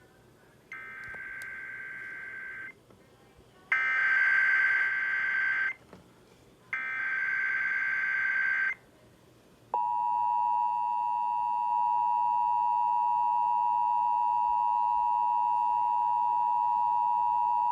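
Emergency Alert System SAME header: three bursts of buzzy digital data tones, each about two seconds long with a short gap between them. About ten seconds in, the steady two-tone EAS attention signal starts and holds for about eight seconds, announcing the start of an emergency alert.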